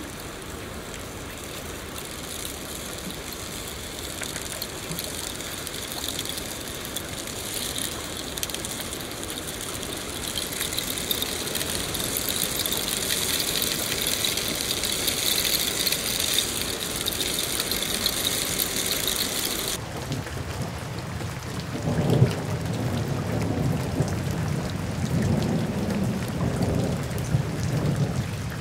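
Steady rainfall, an even hiss that grows louder over the first half. About two-thirds of the way in the sound switches abruptly to deeper, heavier rain with thunder rumbling.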